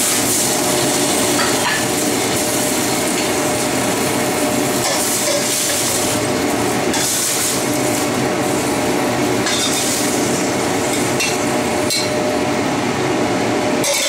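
Choy sum sizzling and steaming in oil in a hot wok, with a metal utensil stirring and scraping against the wok as the greens are turned and lifted out. Sharp clinks of metal on metal come twice near the end.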